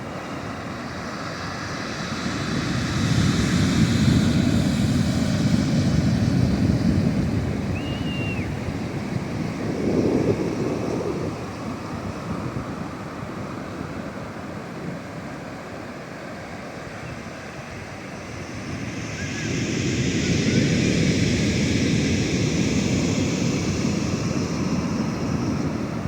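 Ocean waves washing ashore: a steady rush of surf that swells into two big breakers, a few seconds in and again near the end, with a smaller surge in between.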